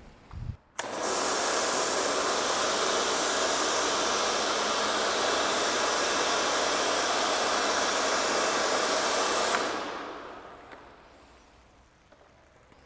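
Pressure washer spraying foam through a foam lance: a steady, loud hiss that starts abruptly about a second in and fades out over about two seconds after the trigger is released near the end. A short low thump comes just before the spray starts.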